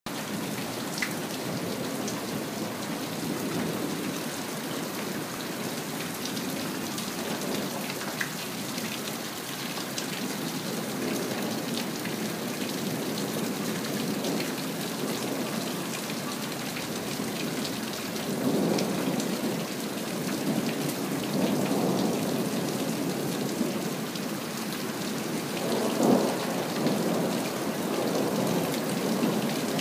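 Steady rain with rolling thunder, with a few sharp drip clicks. The thunder rumbles swell three times in the second half, the loudest near the end.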